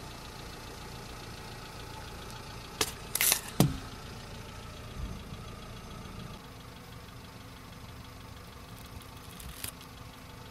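Car engine idling steadily as the tyre rolls over ketchup sachets. About three seconds in comes a quick run of sharp pops and cracks, ending in a dull thud, as the sachets burst under the tyre. There is a faint click near the end.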